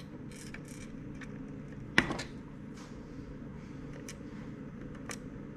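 Light clicks and taps from handling a small plastic battery charger case and a precision screwdriver, with one sharper click about two seconds in, over a steady low hum.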